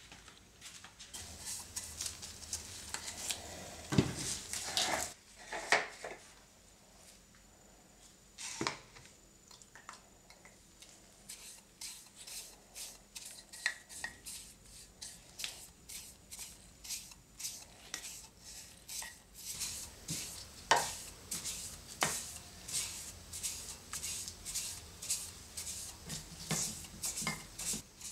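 A bristle brush working oil into the insides of wooden cups: short scratchy strokes of bristles on wood, with light knocks of wood on wood. A few louder knocks come about four to six seconds in, then the strokes run on at an even pace of about two to three a second.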